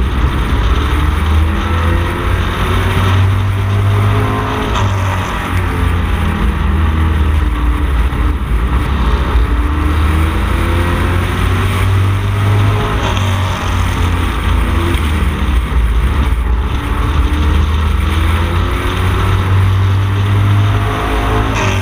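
Camaro street stock race car's engine at racing speed, heard from inside the car, its revs rising and falling over and over as it accelerates down the straights and lifts for the turns.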